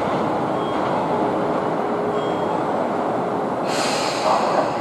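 Tokyo Metro 03 series 5-door chopper-controlled train running toward the listener with a steady rumble. A faint steady tone sounds for a second or two, and a hiss sets in near the end.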